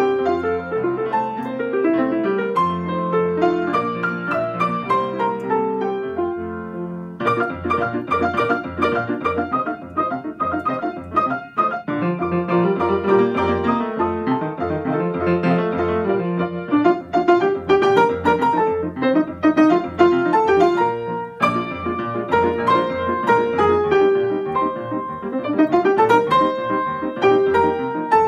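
Yamaha grand piano playing a lively four-hand duet piece, both parts taken by one pianist, over a steady repeated bass pattern. The music changes section abruptly twice, and a quick rising run of notes comes near the end.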